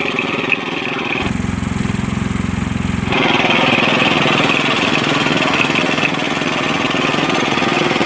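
Small single-cylinder petrol engine on a fishing boat running steadily. A little over a second in it turns deeper and more muffled for about two seconds, then returns to its usual sound.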